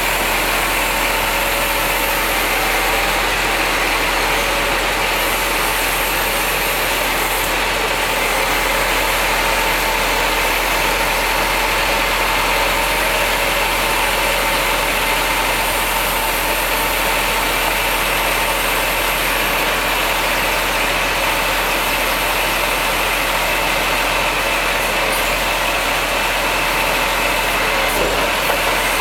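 Scania R420 timber truck's diesel engine running steadily under crane work, driving the hydraulic log crane as it swings a log onto the trailer. A short knock near the end as the log is set down on the bunks.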